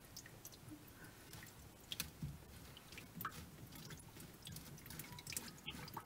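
Faint drips of water falling from a loosened plastic sink U-bend trap into a plastic bucket, with a few light clicks.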